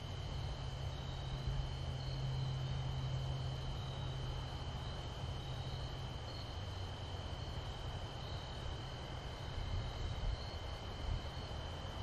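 Crickets chirring in a steady high-pitched chorus over a low, distant engine hum that shifts lower in pitch about halfway through.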